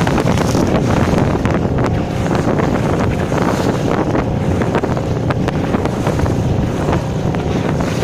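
Wind buffeting the microphone over water rushing and splashing along the hull of a small sailboat sailing against the wind, with frequent short splashes of spray off the bow.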